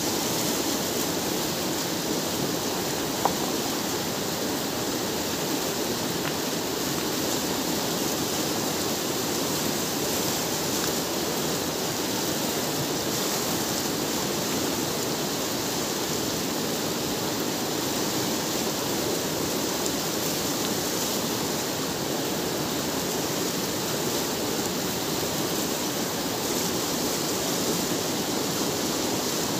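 Fast mountain river rushing steadily past boulders at the bank. One brief sharp click about three seconds in.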